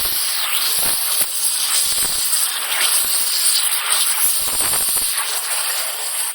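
Power tool working metal: a steady hiss with uneven rougher surges as it cuts or grinds.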